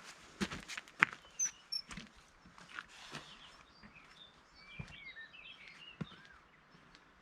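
Footsteps on a hill path, irregular steps, with small birds chirping in short high calls, clustered twice: once after about a second and again around the middle.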